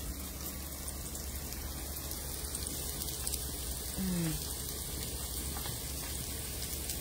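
Steady sizzling of chopped onions and curry masala frying in a wide pan over a wood fire, with a faint fine crackle.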